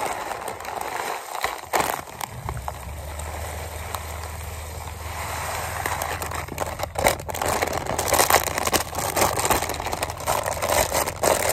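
Clear plastic bag of carp bait pellets rustling and crinkling as hands work the pellets inside it. A steady low rumble runs underneath from about two seconds in.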